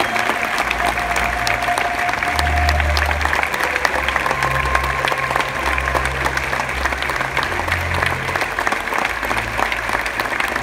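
Theatre audience clapping steadily and densely for the cast's curtain call, with music carrying low bass notes underneath.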